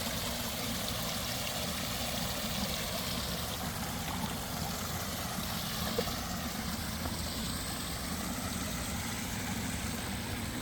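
Koi pond waterfall running steadily, its splashing water making an even rushing noise, with a low steady rumble beneath it.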